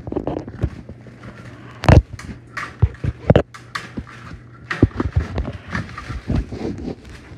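Irregular knocks and thuds, the loudest about two seconds in, over a steady low hum.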